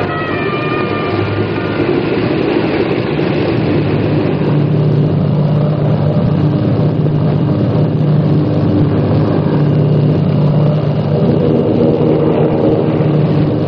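Steady drone of an airliner's engines, used as a radio-drama sound effect. The last notes of the opening music fade out in the first two seconds.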